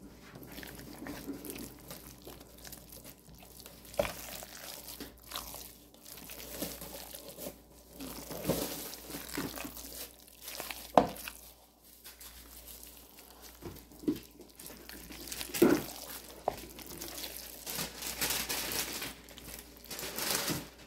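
A spatula stirring and folding thick egg salad in a mixing bowl: wet squelching and scraping, with a few sharper clicks along the way.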